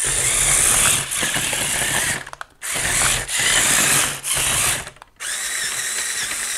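Small electric motors and plastic gearing of a Qihui 9801 remote-control building-block tank whirring in repeated bursts of one to two seconds, stopping and starting as it is driven and its turret is turned. Its battery pack is somewhat run down.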